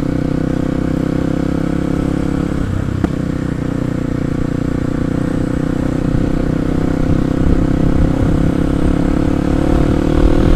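Kawasaki KLX 250's single-cylinder four-stroke engine running steadily under way, getting a little louder in the second half. A single short knock about three seconds in.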